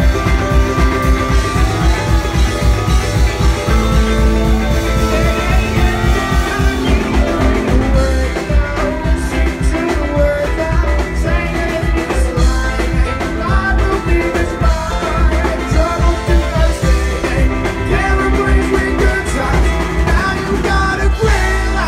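Rock band playing live: drum kit keeping a steady beat under electric bass, electric guitar and Nord keyboard, with a wavering melodic line coming forward about eight seconds in.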